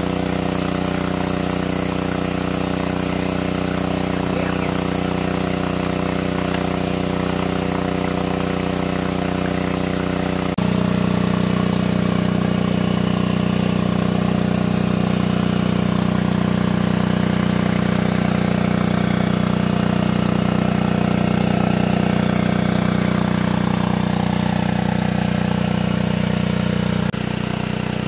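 Engine-driven large-capacity water pump running steadily, with a hiss of water spraying from its outlet. Its pitch and loudness change abruptly about a third of the way through and again near the end.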